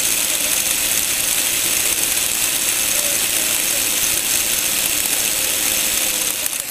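Motor-driven Lego Technic gearbox running, its plastic gears meshing in a steady, loud whirring clatter. Near the end it drops back to a quieter running as the gear is changed.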